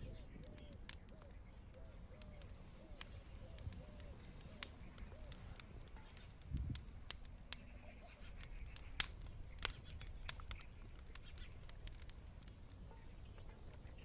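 Faint wood fire crackling under a pot of boiling water, with scattered sharp pops and clicks over a low rumble and a soft thump about halfway. A bird repeats a short call about twice a second through the first few seconds.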